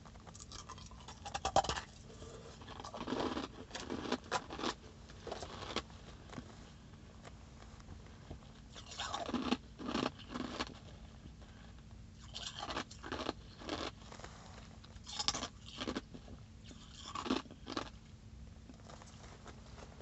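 Ice being chewed close to the microphone: three bouts of loud, crisp crunching, with quieter pauses of a second or two between them.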